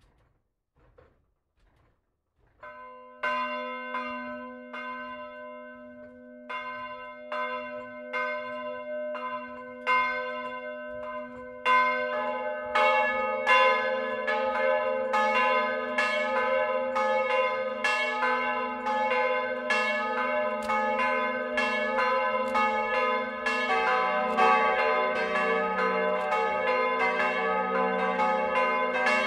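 Bronze church bells, cast in 1949 by Petit & Gebr. Edelbrock, swinging and ringing in the tower. After a few faint clicks, the first bell starts striking about three seconds in. A second bell joins around twelve seconds, and a third, deeper bell comes in near the end, building into a full peal.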